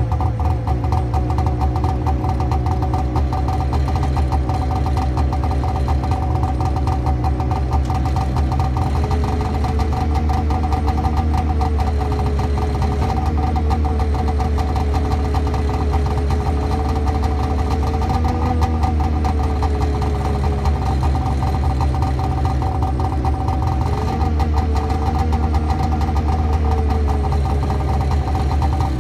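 1992 Arctic Cat Lynx 300 snowmobile's two-stroke engine idling steadily.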